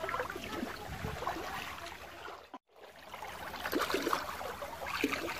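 Shallow ditch water sloshing and trickling as people wade and stir it, with scattered small splashes. The sound cuts out completely for a moment a little past the middle.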